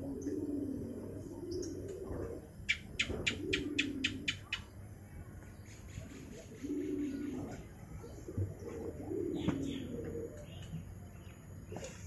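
Domestic pigeons cooing, low rolling coos that come again and again in phrases of about a second. A little under three seconds in, a quick run of about eight sharp high chirps cuts in over them.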